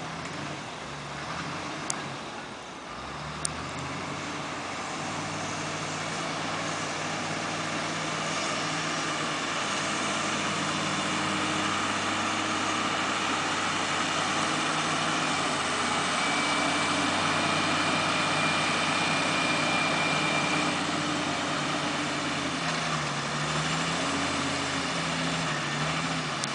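Heavy machine engine running at a log yard during log unloading, its pitch rising and falling as it changes speed, with two sharp knocks about two and three and a half seconds in.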